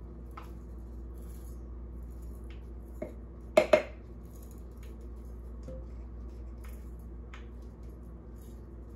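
A spatula tapping and scraping against a jar as pork-rind crumbs are worked out into a bowl, with scattered light clicks and two sharp knocks close together about three and a half seconds in, over a steady low hum.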